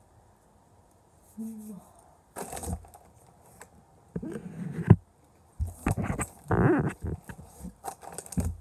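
Rustling and knocking close to the microphone as hands and clothing brush against the phone: irregular short bursts starting about a second and a half in, with one sharp knock near the middle.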